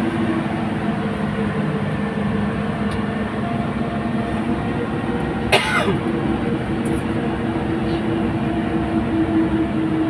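Bus engine and road noise heard from inside the passenger cabin, a steady hum while the bus drives along. About halfway through comes one brief sharp sound that sweeps quickly down in pitch.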